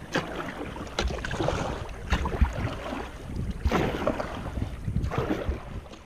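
Kayak paddle blades dipping and pulling through sea water, a splashy swoosh about every second and a half, with wind buffeting the microphone.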